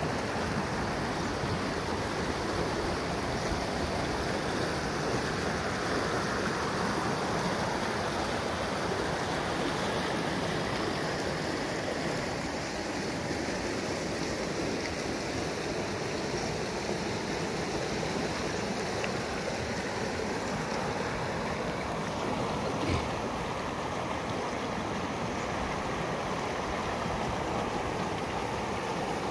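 Overflowing, muddy stream rushing over and around rocks: a steady, continuous rush of water.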